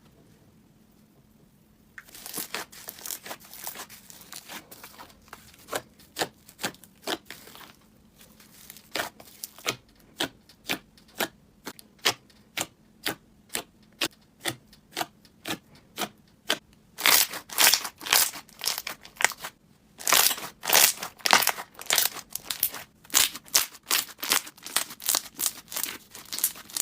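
Slime being pressed and squished by hand, making a run of sharp pops and clicks. It starts about two seconds in at roughly two pops a second, and grows louder and faster over the last ten seconds.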